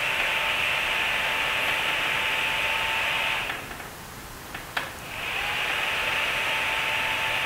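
Small cooling fan on a 5.6 W diode laser engraving head running with a steady whir and whine while the laser fires for soldering, stopping about three and a half seconds in. A single sharp click follows, then the fan spins back up with a rising whine and runs on as the laser fires again.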